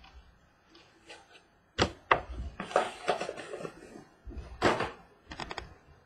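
Several sharp knocks and taps, with a stretch of rustling between them, as a trading-card box is handled and opened and cards are handled on a wooden table.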